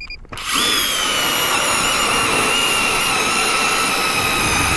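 StrikeMaster Lithium 24V electric ice auger drilling a hole through lake ice: after a short beep, the motor starts about half a second in with a loud, steady whine over a grinding rush.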